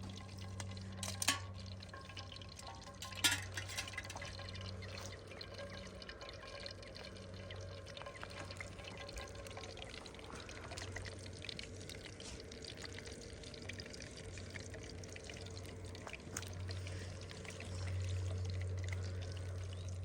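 Water running steadily under a low hum, with two sharp clicks in the first few seconds. The hum swells near the end.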